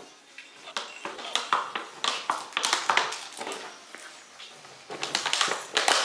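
Golden retriever puppies pushing and mouthing an empty plastic water bottle on a hard floor: irregular crinkling and clattering of thin plastic, busiest about a second in and again near the end.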